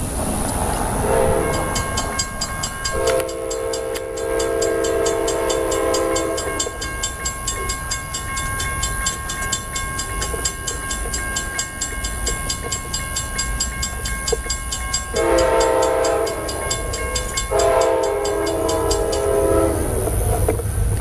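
Amtrak passenger locomotive horn blowing for the grade crossing: one long blast, then two more back to back near the end. Underneath, the crossing's warning bell rings fast and steadily, and the approaching train's rumble grows at the very end.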